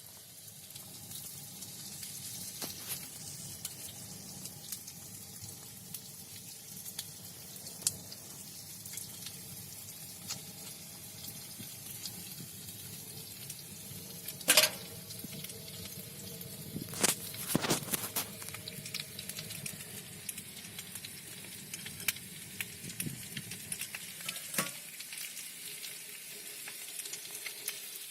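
Fish frying in a pan on a wood-burning camping stove, sizzling steadily with scattered small crackles. A few louder knocks a little past halfway.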